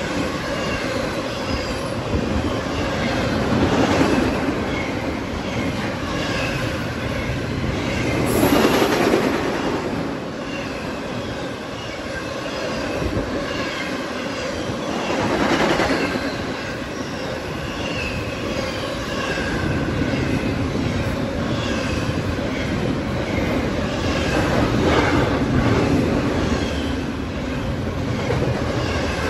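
Double-stack intermodal freight train passing at speed: a steady rumble and rattle of steel wheels on the rails. It swells louder every several seconds as cars go by, with scattered short, high-pitched wheel squeals.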